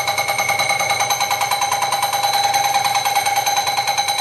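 Small metal lathe running: a steady high whine at several fixed pitches, pulsing fast and evenly.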